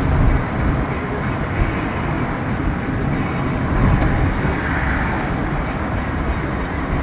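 Car in motion heard from inside the cabin: a steady low rumble of tyres on the road and the engine.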